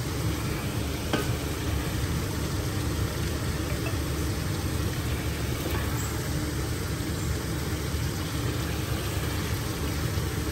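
Onion-tomato masala frying in a pot with a steady sizzle as goat trotters are added to it, over a steady low hum. A faint tick or two comes as the pieces go in.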